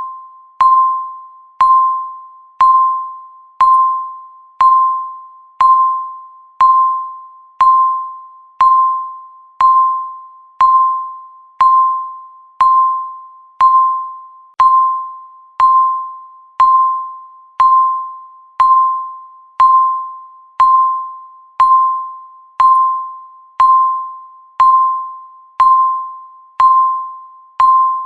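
Countdown timer beeping once a second. Each beep is the same single high tone that strikes sharply and fades away before the next.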